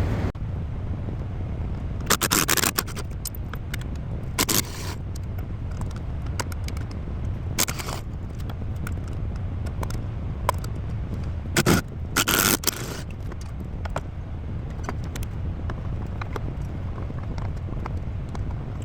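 Hand tools working the T40 Torx bolts on a truck's clutch switch housing: a handful of short metallic scrapes and clicks, the loudest about two, four and a half and twelve seconds in, over a steady low hum.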